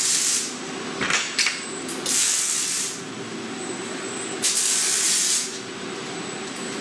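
Welding arc of a robot-arm wire-arc 3D printer depositing stainless steel, firing in repeated bursts of hiss about a second long, roughly every two seconds. A steady hum runs between the bursts.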